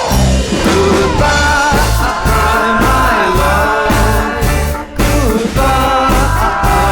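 A band playing a rock song: a steady drum beat and bass under a wavering melody line, with a pitch sliding down at the very start.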